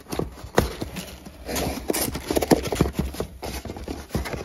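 Cardboard boxes being handled: a small white box is pulled out of a shipping carton and its lid flipped open, giving a quick run of knocks, taps and scrapes.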